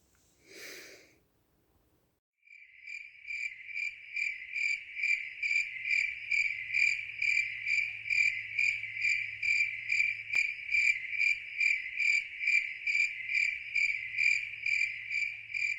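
Cricket chirping in a steady, even rhythm of about two and a half chirps a second, starting a couple of seconds in, over a faint low hum.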